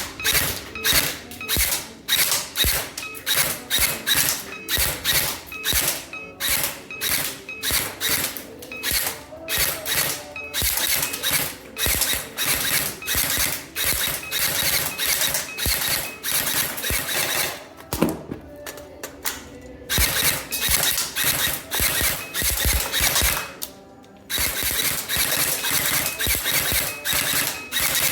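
Specna Arms Edge 2.0 electric airsoft rifle firing quick single shots, about two to three a second. Near two-thirds through, the shots break off for about two seconds, where the partly loaded magazine runs dry and is changed.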